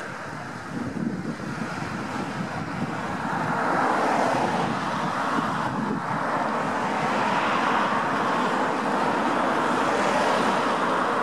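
Wind buffeting the microphone, a rushing noise that swells about three to four seconds in and stays up, with a faint steady hum underneath.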